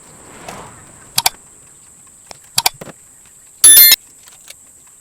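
Hand-stitching leather with a needle and waxed thread: a few light clicks, then, about three and a half seconds in, a loud, short squeaky rasp as the thread is pulled through the leather.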